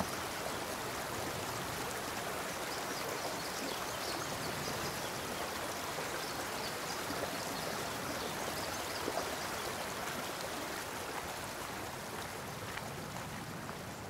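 Shallow, rocky forest stream flowing over stones: a steady rush of running water.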